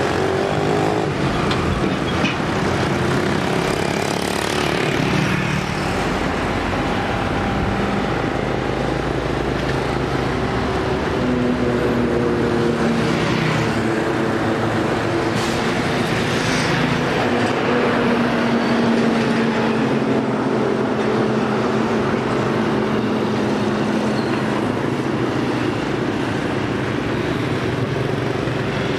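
Road traffic passing: heavy lorry engines and motorbikes with tyre noise, engine notes slowly rising and falling as vehicles go by.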